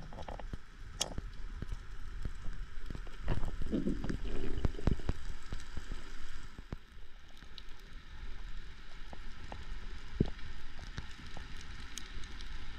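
Underwater sound picked up by a camera in its waterproof housing: a steady muffled hiss with scattered sharp clicks and crackles. About three and a half seconds in there is a louder, muffled low rustling and thudding for a second or two.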